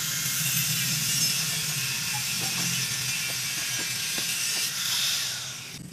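Angle grinder cutting a steel reinforcing bar: a steady high grinding hiss with a faint whine, which stops shortly before the end.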